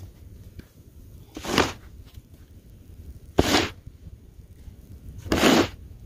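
Snow shovel scooping and scraping snow in a steady rhythm: three short scrapes about two seconds apart.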